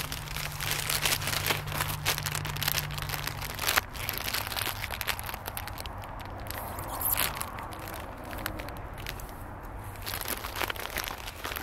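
Plastic snack bag being handled close by, giving a run of irregular crinkling and crackling.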